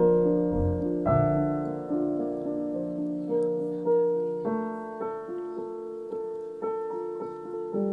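Background music: a slow, gentle piano melody, single notes struck about once or twice a second and left to ring.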